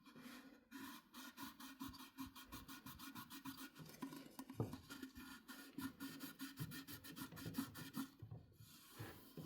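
Rapid, rhythmic scrubbing strokes on the stainless steel inside an electric kettle, several a second, stopping near the end: scouring off limescale (mineral buildup from boiling water).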